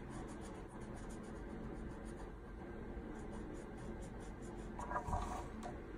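Felt-tip marker scratching across paper in short, repeated colouring strokes.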